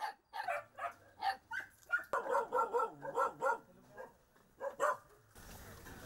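Puppies and young dogs barking and yipping in a quick run of short, high-pitched barks that stops about five seconds in.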